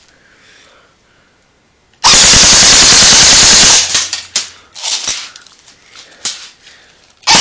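Matrix PDW airsoft gun firing one full-auto burst of about two seconds, a rapid even string of shots loud enough to clip. It starts about two seconds in and is followed by a few scattered sharp clicks and taps.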